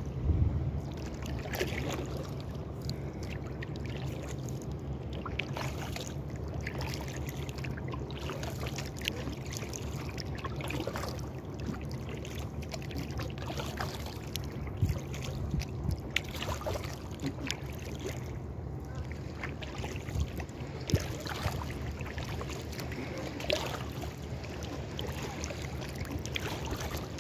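Paddling an inflatable kayak: water splashing and lapping at the hull, with the odd louder paddle splash, over a steady low rumble.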